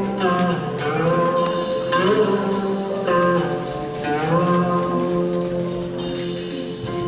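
Recorded music accompanying a dance: a melody whose notes slide up into each held tone, over a steady beat of light, jingly percussion.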